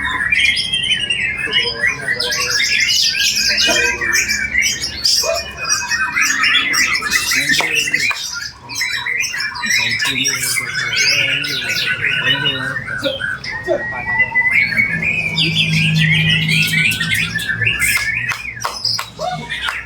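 White-rumped shama (murai batu) singing continuously: a fast, ever-changing stream of loud, sharp whistles, trills and rasping notes broken by hard clicks, with calls of other birds worked into its song. A short break about eight and a half seconds in.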